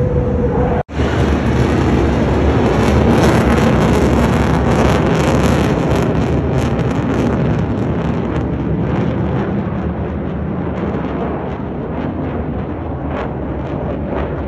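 Fighter jet flying past overhead: a loud jet engine roar with crackling, building to its loudest a few seconds in and then slowly fading.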